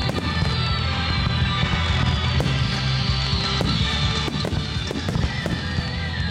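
Loud music playing during a fireworks display, with the sharp bangs and crackle of shells bursting many times through it.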